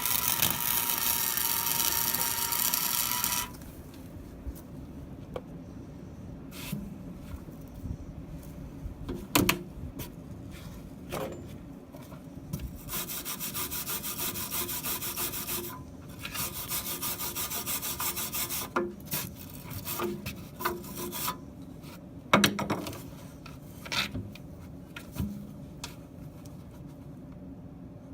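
Welding arc crackling steadily in runs of several seconds as beads are laid to weld steel chain hooks onto a skid steer bucket. The welding stops and starts several times, with sharp clicks and knocks in the pauses.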